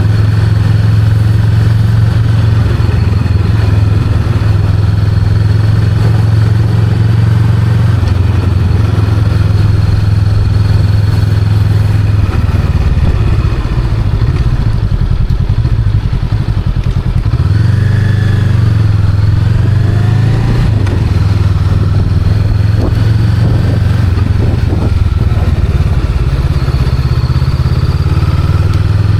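Honda Rebel 500's parallel-twin engine running under way at a steady note, easing off a little past the middle, then rising in pitch as it picks up speed again.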